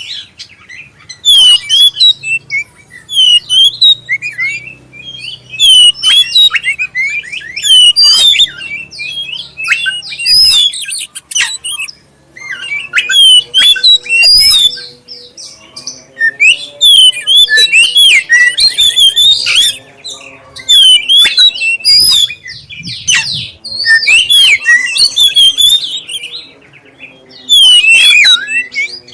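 Black-breasted oriental magpie-robin (kacer) singing loudly: rapid, varied phrases of clear whistles and chirps, broken by a few short pauses.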